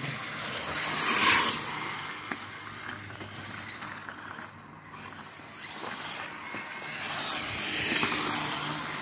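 Reely ARX540 electric RC dirt bike running under throttle on a gravel lane: motor and tyre noise that swells about a second in, fades as the bike moves off, and swells again near the end as it comes back close.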